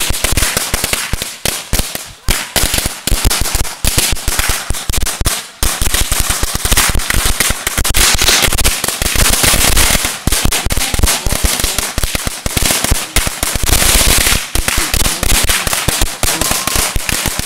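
A 16,000-count roll of Black Cat firecrackers going off in a continuous, rapid crackle of bangs. It thins briefly about two seconds and five and a half seconds in, then fires even more densely.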